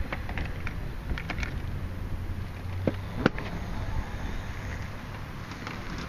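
Steady low outdoor street rumble, like distant traffic, with a few light ticks in the first second and a half and two sharp clicks about three seconds in.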